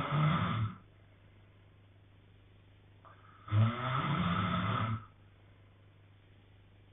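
A man snoring in his sleep with a regular rhythm: the tail of one snore fades out just under a second in, and a full snore of about a second and a half comes about three and a half seconds in, with quiet breathing pauses in between.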